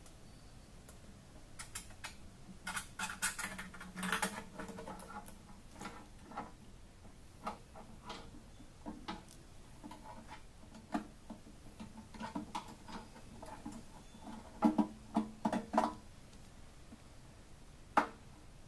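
Irregular clicks, taps and knocks as a Harley-Davidson fuel pump assembly, its metal mounting plate and wires, is worked up and out through the fuel tank opening. A quick run of louder knocks comes about fifteen seconds in, and a single sharp click near the end.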